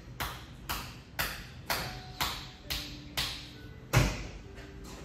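Percussive massage: hands striking a client's body in a steady rhythm, about two strikes a second, with a heavier thump about four seconds in.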